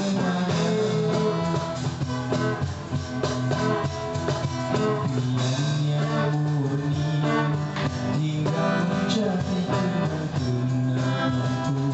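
Live busking band playing an instrumental passage led by guitar, with steady percussion keeping the beat.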